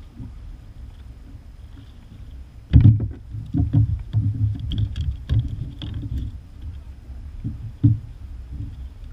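Knocks and bumps against the plastic hull of a sit-on-top kayak as rod and gear are handled aboard. A cluster of thumps runs from about three to six seconds in, the first the loudest, and two more come near the end.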